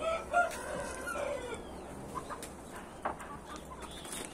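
Rooster crowing once, a call about a second and a half long that falls away at the end; a few faint short clicks follow.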